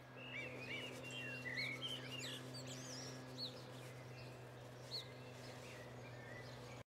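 Small birds chirping and twittering, over a steady low hum.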